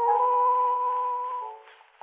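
Instrumental music from an 1888 phonograph cylinder: held chords of several steady notes, thin and muffled by the recording's narrow range, dropping away near the end.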